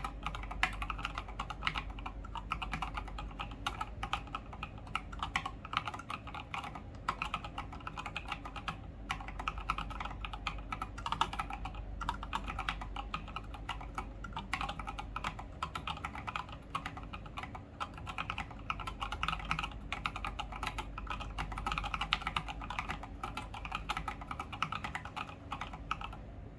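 Continuous typing on a mechanical keyboard: an Atlas board with a brass plate, stock Gateron Fei Matcha Plus switches and SA-profile keycaps. Keystrokes come quickly and unevenly, many per second, without pause.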